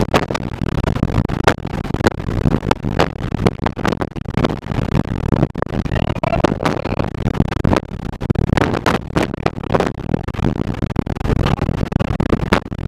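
Violent tornado winds blasting against the armored TIV2 intercept vehicle, with debris striking its body in many sharp, irregular knocks over a loud, steady rumble.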